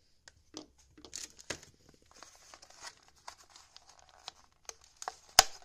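Clear plastic blister pack of a diecast toy car crinkling and clicking as fingers handle and work at it, with one sharp plastic snap near the end.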